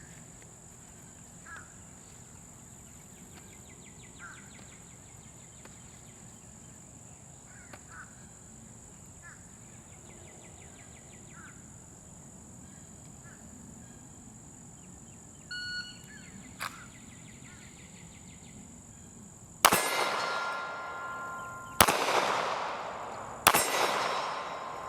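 A shot timer beeps once; about four seconds later a Glock 43 9mm subcompact pistol fires three single shots, roughly two seconds apart. After each shot a steel target rings.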